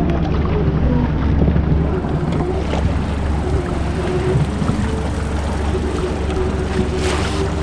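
Boat motor running steadily at trolling speed: a low drone with a faint whine that wavers slightly in pitch, and a short hiss about seven seconds in.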